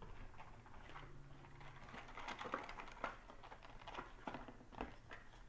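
Faint handling noise: scattered small clicks, taps and rustles as a small box of .22 long rifle shot cartridges is picked up and handled.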